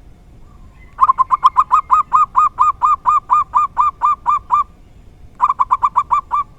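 Zebra dove (perkutut) cooing: a long run of about twenty rapid, evenly spaced coo notes, quicker at first, then after a short pause a second run of about eight.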